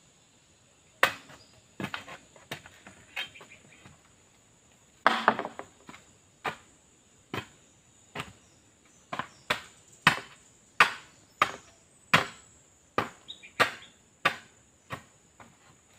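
Digging bar (barita) rammed down into bamboo poles to knock out the nodes inside: sharp wooden knocks coming irregularly about once a second, with a quick cluster of strikes about five seconds in.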